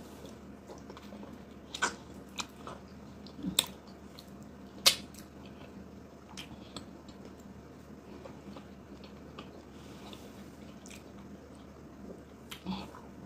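Close-up eating sounds: a few short wet mouth clicks and smacks as a handful of eba with slimy ogbono soup is eaten by hand, the sharpest about five seconds in.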